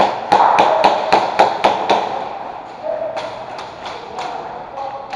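Airsoft guns firing during an indoor game: a quick string of sharp cracks, about four a second for the first two seconds, then scattered single shots.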